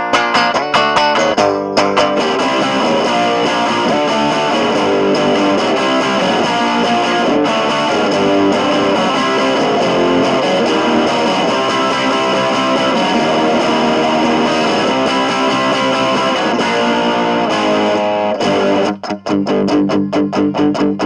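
Squier Sonic Mustang HH electric guitar played through a Boss DS-2 distortion and Small Clone chorus: quick picked notes for about two seconds, then a long stretch of held, ringing distorted chords, then choppy picked chords again near the end.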